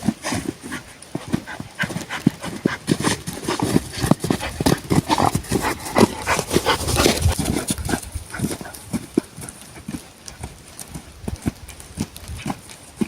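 Rapid, irregular knocking and clattering, a dense run of hard impacts that is busiest midway through and thins out toward the end.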